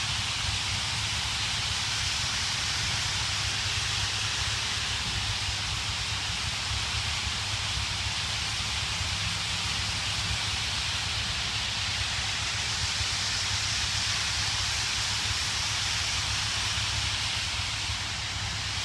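Massed din of thousands of birds calling at once, blending into a steady hissing chatter with no single call standing out, over a low rumble.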